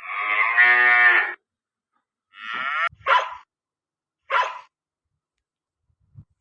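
A cow moos once, a long call of about a second and a half. It is followed by a shorter call and then two short, sharp barks, the start of a dog's barking.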